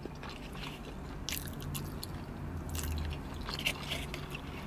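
Close-up mouth sounds of chewing soft, cheese-stuffed gnocchi, with scattered small wet smacks, plus a plastic fork picking in a plastic takeout bowl, over a low steady hum.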